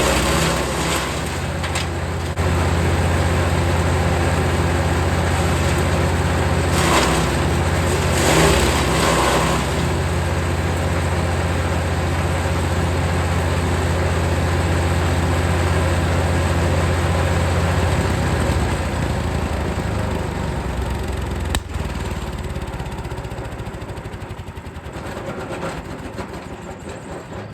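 Jansen 1500e GTS wood chipper running steadily, with brief louder surges of crunching a little after the start and around seven and nine seconds in as branches are fed through. Its sound changes after about eighteen seconds and fades away toward the end.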